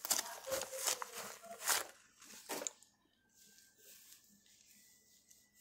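Rustling and rubbing close to a headset microphone: several short scraping strokes in the first two and a half seconds, then quieter with a faint steady high tone.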